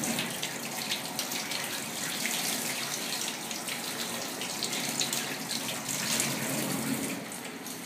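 Tap water running from a kitchen faucet and splashing into a stainless-steel sink as a kitten is rinsed under the stream, with a steady rush and irregular splashes.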